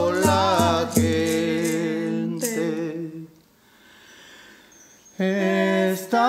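A man and a woman singing a slow chant in Spanish, with vibrato, over a hide frame drum struck with a beater about three times a second. The held notes fade out about three seconds in, and after a short quiet pause the singing and drumming start again near the end.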